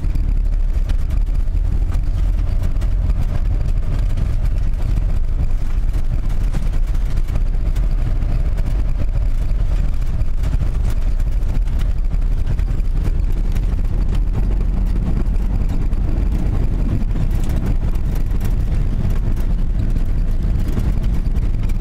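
Vehicle driving: a steady low rumble of engine and road noise that does not let up.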